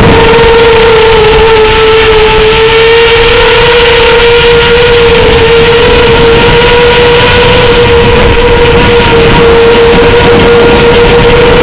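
FPV quadcopter's motors and propellers humming at a nearly steady pitch, with small wavers, over a loud rushing noise.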